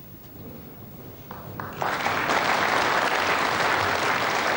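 Snooker audience applauding, the clapping setting in suddenly about two seconds in after a near-quiet start and then holding steady.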